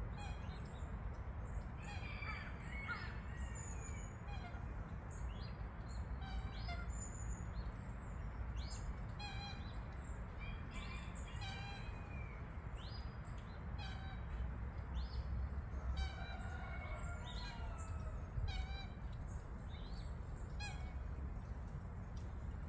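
Wild birds calling and chirping repeatedly, short sweeping calls scattered throughout, over a steady low rumble.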